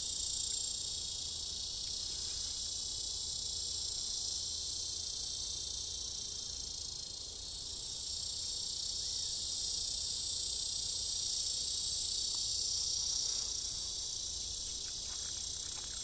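A male cicada's mating call: a continuous high-pitched buzz that dips briefly about halfway through.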